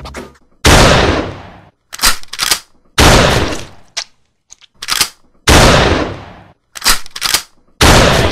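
A series of about nine loud, sharp bang sound effects at uneven spacing, some in quick pairs, the biggest ones trailing off over about a second, in the manner of gunshots.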